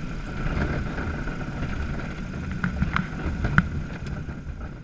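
Cockpit sound of a Diamond HK36 Super Dimona motorglider rolling on a grass airfield: steady engine and propeller drone with wind noise and low rumble. A few sharp knocks come about two and a half to three and a half seconds in, and the sound fades near the end.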